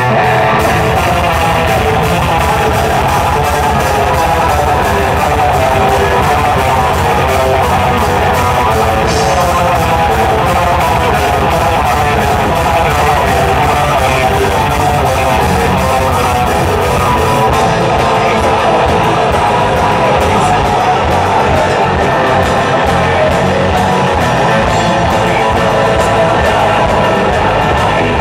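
A metal band playing live: distorted electric guitars over a drum kit, loud and dense throughout. About two-thirds of the way in, the cymbal wash drops out and the low end turns choppier.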